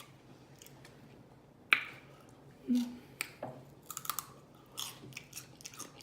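Close-up chewing and lip smacking of a person eating, with scattered wet mouth clicks and one sharp smack a couple of seconds in.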